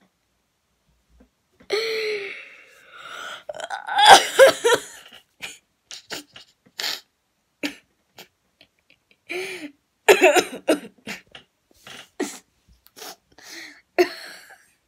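A young person laughing hard in breathless, gasping fits of short bursts, loudest about four seconds in and again about ten seconds in.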